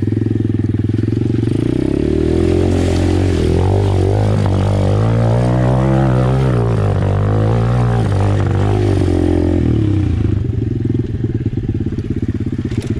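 Apollo 125cc pit bike's single-cylinder four-stroke engine pulling through a muddy water puddle, its note rising and then falling as the throttle works, with water splashing around the bike. About ten seconds in the splashing stops and the engine settles to a steadier note on dry dirt.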